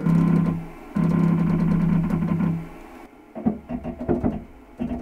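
Background music: a steady low hum for the first two and a half seconds, then plucked guitar-like notes about three or four a second.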